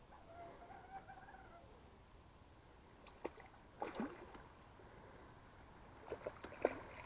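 A faint, wavering bird call in the first second or two, then a few short, sharp water splashes from the hooked carp at the surface, the loudest about four seconds in and a cluster near the end.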